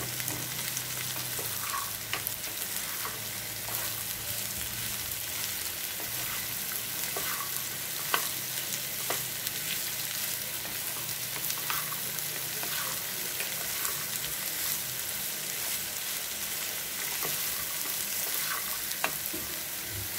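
Diced carrots sizzling in oil in a non-stick pan while being stirred with a wooden spatula, with occasional clicks of the spatula against the pan.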